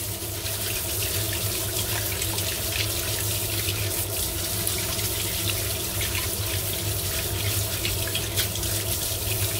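Tap water running steadily into a sink, splashing over a sweet potato as it is scrubbed under the stream with a plastic mesh produce bag.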